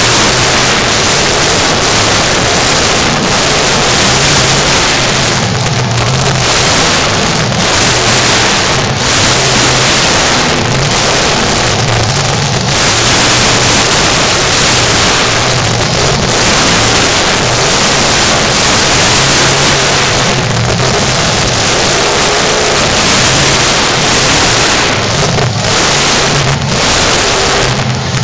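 Bigfoot monster truck's supercharged V8 running loud as the truck drives and spins, the engine note rising and falling with the throttle.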